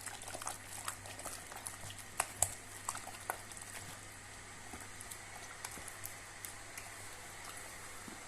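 Kettle heating toward the boil, a steady rushing noise. A few sharp clicks come in the first three seconds or so, likely a utensil against the mixing bowl.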